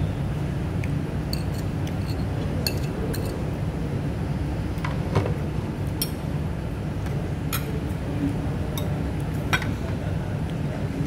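Metal fork clinking and scraping against a ceramic plate while eating, light clinks about every second or two, over a steady low room rumble.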